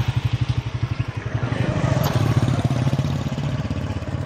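A motorcycle engine running close by with a rapid, even putter. It grows louder toward the middle, then eases off a little.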